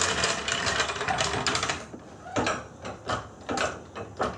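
Hydraulic floor jack being pumped to lift a car, a dense mechanical clatter at first, then separate clunking handle strokes about twice a second.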